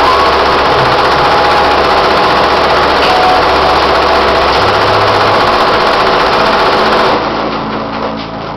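SWF multi-head embroidery machine stitching at speed, a loud steady mechanical sound; about seven seconds in it cuts off abruptly and quieter music takes over.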